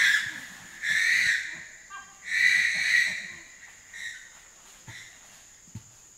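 Chimpanzee infant screaming: two long, high-pitched screams about a second and a half apart, after the end of an earlier one, then two brief faint calls. A steady thin insect drone runs underneath.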